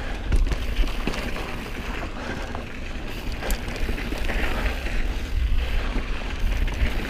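Specialized Stumpjumper mountain bike rolling fast down a dirt singletrack: a steady rush of knobbly tyres on dirt and wind on the action camera's microphone, with a heavy low rumble and a few sharp clicks and knocks from the bike over bumps.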